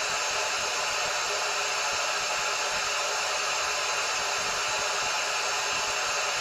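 Steady white-noise hiss from a littleBits random bit switched to noise, played through the small speaker bit as a sleep-masking sound. The hiss is even and unchanging, with little bass.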